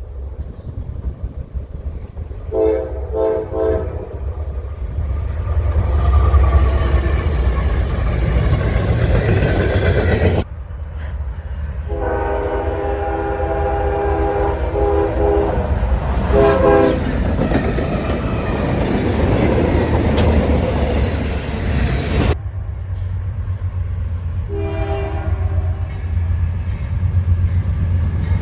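Train horns sounding over the rumble of passing trains: a few short blasts about three seconds in, a longer series of blasts in the middle, and one brief blast near the end, with the sound cutting abruptly between separate trackside clips.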